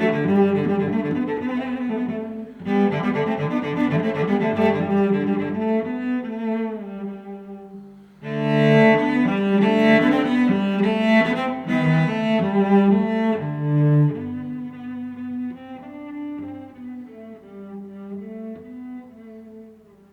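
Background music led by bowed strings in a low, cello-like register, with a dip about two seconds in and a fuller passage about eight seconds in.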